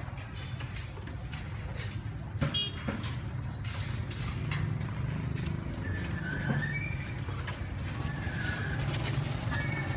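Busy street ambience: a steady low rumble of traffic, with a few sharp knocks and clatters about two and a half seconds in and faint high chirps later on.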